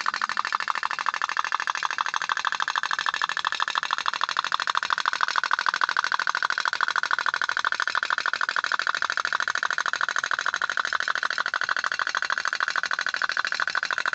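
Toy pop-pop (otok-otok) steam boat running, its engine putting out a rapid, even stream of popping ticks.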